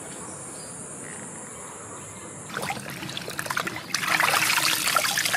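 Insects buzzing in a steady high drone for about two and a half seconds. Then water splashing and sloshing as hands wash raw chicken pieces in a large metal basin, louder near the end.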